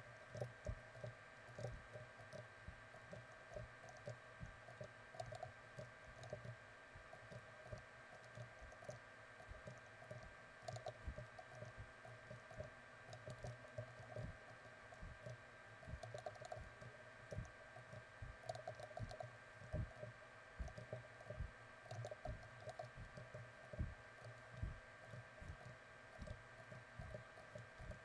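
Faint, irregular clicking of a computer keyboard and mouse, a few clicks a second, over a steady low electrical hum.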